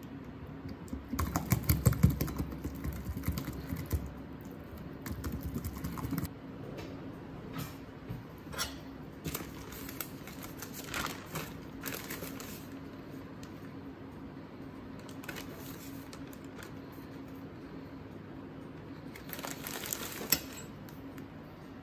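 Whisk beating egg in a bowl: a fast run of clicks against the bowl for about five seconds, then scattered taps. Near the end there is a short rustle of a plastic zip-lock bag as flour is poured in, ending in one sharp tap.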